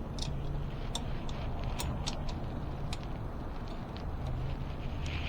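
Scattered light clicks of hand tools working on an e-bike's brake caliper bolts, over a steady low hum.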